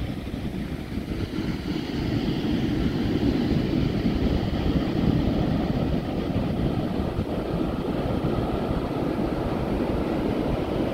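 Ocean surf breaking and washing up a sandy beach: a steady, low rushing noise that grows a little louder about two seconds in.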